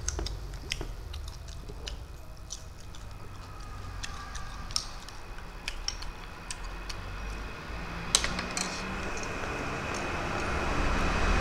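Eating sounds: scattered small clicks and crunches from hand-eating small whole shrimp with rice, and a spoon dipping into a glass bowl of curry. A low background rumble grows louder near the end.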